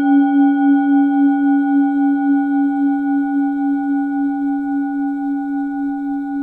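Singing bowl ringing on after a single strike: a steady low hum with several higher overtones, wobbling in a pulse of about three or four beats a second as it slowly fades.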